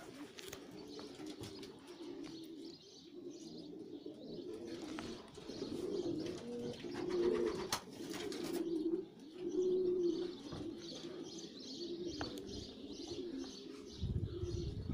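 Racing pigeons cooing in their loft, with a brief flutter of wings about eight seconds in. A low rumble comes in near the end.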